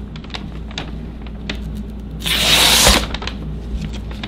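A katana blade slicing through a hand-held catalogue page as a sharpness test: one dry hissing cut about two seconds in, lasting under a second, with a soft thump at its end. It is a clean cut, the sign of a sharp edge. Light paper rustles and clicks are heard around it.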